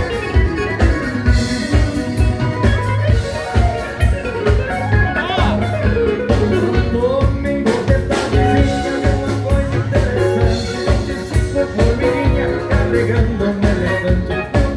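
Live gaúcho dance band playing a vanerão, with a strong bass line and a steady, fast beat.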